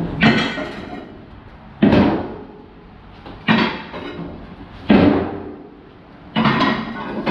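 Heavy strikes on scrap metal, five of them about a second and a half apart, each one sharp and ringing out briefly.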